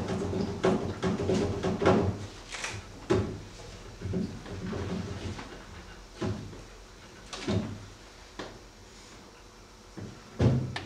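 A scattering of short knocks and bumps, about ten at uneven intervals, the loudest near the start and near the end.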